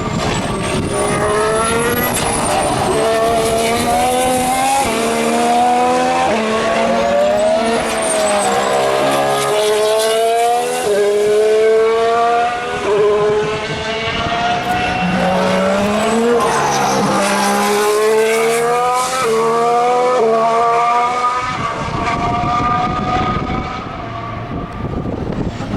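2014 Formula One car's 1.6-litre turbocharged V6 hybrid engine accelerating hard, its pitch climbing and then dropping sharply at each upshift, about once a second. The engine note fades into general track noise near the end.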